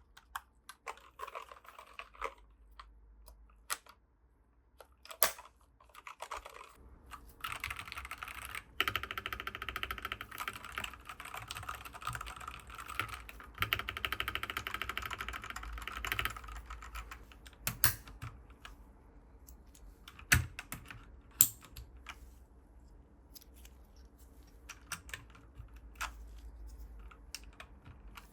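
Keys of a Dierya DK98SE mechanical keyboard with linear red switches, pressed a few at a time at first, then typed on fast and continuously for about ten seconds, then tapped singly again.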